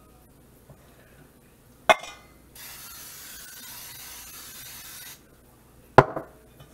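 Aerosol can of canola cooking spray hissing steadily for about two and a half seconds as it is sprayed into a raw pie crust. A sharp click comes just before the hiss and a knock about a second after it.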